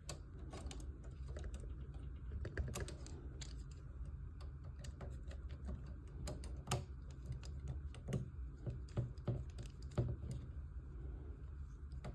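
Irregular small clicks and taps of model-kit frame parts being handled and fitted together by hand, over a low steady hum.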